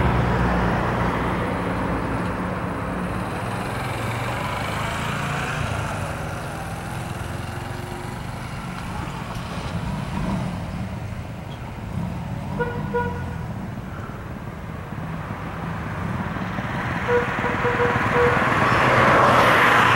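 Road traffic passing on a city avenue: a steady rumble of engines and tyres, with a few brief beeps about two-thirds of the way through and a vehicle passing close near the end.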